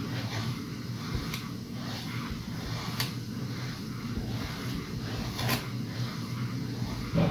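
Copper cezve of Turkish coffee being shifted in a tray of hot sand: a steady low rumble with a few sharp metallic clicks, and a louder knock near the end.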